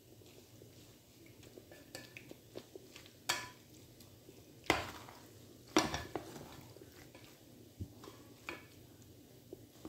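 A plastic spoon stirring small tube pasta in a metal pot, knocking and scraping against the pot several times, with three sharper knocks in the middle.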